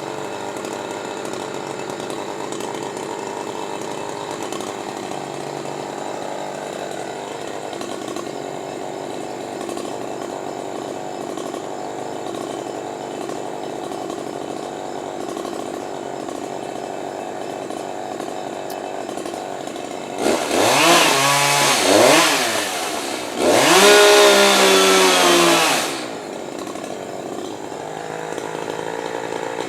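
Chainsaw running steadily at a lower speed, then revved up hard twice near the end, the pitch sweeping up and falling back each time and much louder than before.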